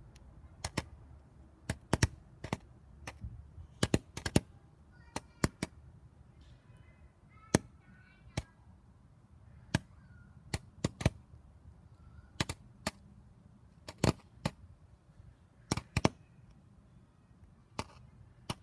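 A small twig fire burning shotgun shells: a few dozen sharp, irregular pops and cracks, some much louder than others, spread through the whole stretch.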